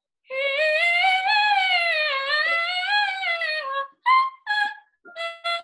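A female soprano voice singing a vocal exercise: one long vowel gliding smoothly up and then down twice, followed near the end by a few short, separate notes.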